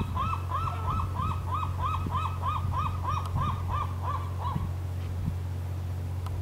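A sea lion barking in a long, even train of short barks, about three a second, that stops about four and a half seconds in. A steady low hum runs underneath.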